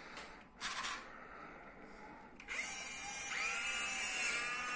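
Small electric gear motors of a Jamara 1:14-scale RC Liebherr excavator, upgraded with Huina motors, running as the arm moves. There is a brief whir under a second in, then from about two and a half seconds a steady motor whine that rises in pitch and holds.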